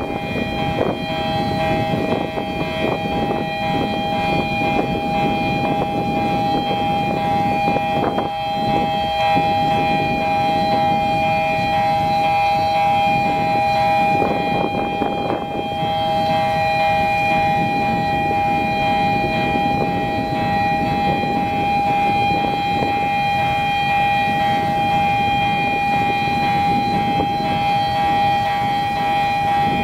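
A railway bascule bridge's warning siren sounding continuously while the span lowers. It holds a steady chord of high tones without wavering, over a rough noise underneath.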